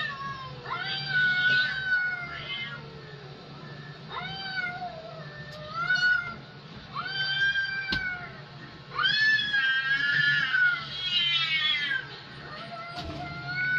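Two cats yowling at each other in a territorial standoff: a series of long, wavering yowls, each about a second, rising and falling in pitch, with short gaps between. The yowls are played through a TV speaker over a steady low hum.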